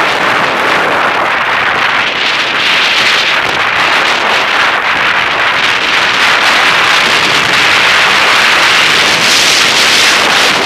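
Telemark skis sliding and scraping over hard-packed snow in a steady, loud hiss, mixed with wind rushing past the microphone.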